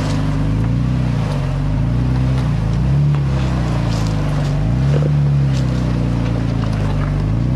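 Jeep Grand Cherokee Trailhawk's engine running at low trail speed, its pitch rising and falling every second or so as the throttle changes, with a few light clicks and knocks from the trail.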